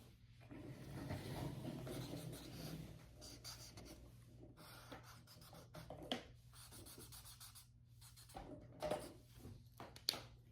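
Markers scratching and rubbing across sketchbook paper in a run of colouring strokes, with a few sharp clicks.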